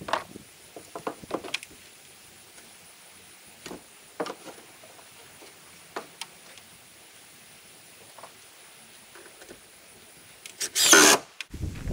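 Scattered light knocks and taps of rough-cut wooden siding boards being handled, then one loud burst of noise under a second long near the end.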